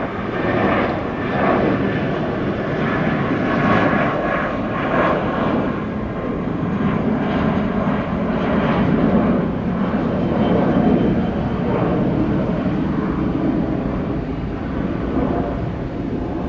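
Jet airliner's engines at takeoff thrust: a loud, steady rushing noise with a faint whine on top, swelling and easing slightly as the aircraft rolls down the runway.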